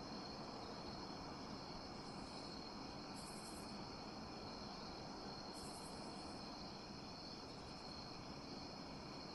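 Faint room tone with crickets: a steady hiss and a high, steady drone, with four brief high chirps spread through it.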